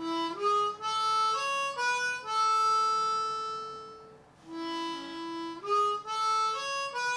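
Diatonic harmonica in A playing a simple single-note melody: notes stepping up (3 blow, 3 draw, 4 blow) and then on through 5 blow and 4 draw, settling on a long held 4 blow. The phrase starts over about four and a half seconds in.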